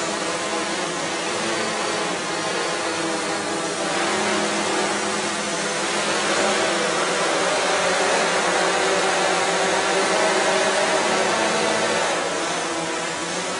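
Quadrotor propellers buzzing steadily in flight, a dense whir with several hum tones. It grows louder about four seconds in and eases off near the end.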